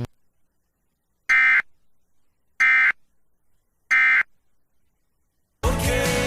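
Emergency Alert System End-of-Message data bursts: three identical short, harsh digital tone bursts about a second and a quarter apart, marking the close of the warning broadcast. Music starts near the end.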